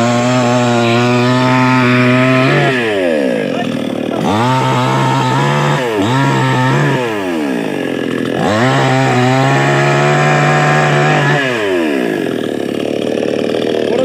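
Petrol two-stroke chainsaw revved up to full speed three times as it saws through tree branches, each time dropping back to idle in between.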